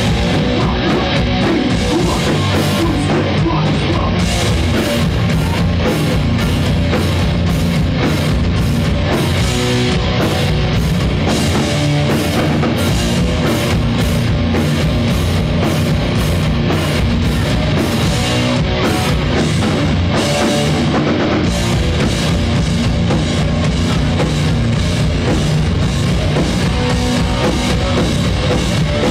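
Hardcore punk band playing live: distorted electric guitars, bass and a drum kit, loud and steady.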